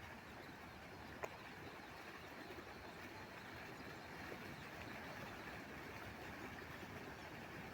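Faint, steady outdoor background noise with no distinct voice or call, broken by a single sharp click about a second in.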